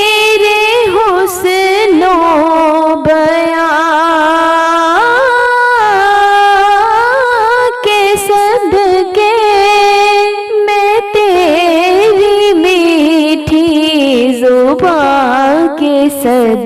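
Wordless vocal melody sung on long held notes with gliding, wavering ornaments, the introduction of an Urdu naat (Islamic devotional song).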